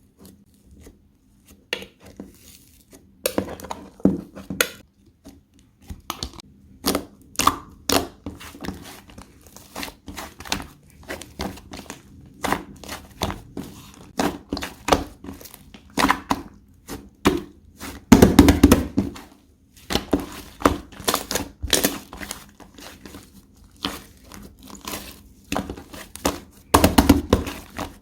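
Slime being pressed, squished and stretched by hand, making irregular crackling pops and clicks, with a louder run of crackling about two thirds of the way through and again near the end.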